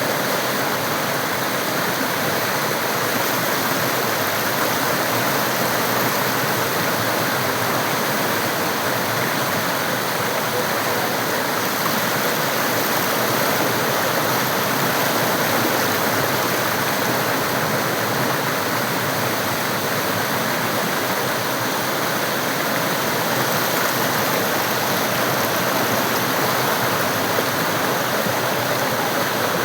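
Mandakini river water rushing steadily, an even unbroken noise.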